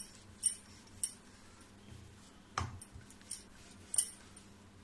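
Wooden rolling pin rolling out stiff dough on a stone countertop: soft low thumps with about five short, sharp clicks and clinks spread across the stretch.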